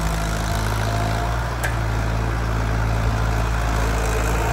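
Tractor diesel engine running steadily while it pulls a maize planter across the field. A single short click about a second and a half in.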